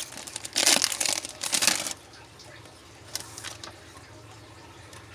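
Foil wrapper of a Topps Chrome baseball card pack crinkling and tearing as it is ripped open, in loud rustling bursts over the first two seconds. Then it goes quiet but for a faint rustle of the cards being slid out about three seconds in.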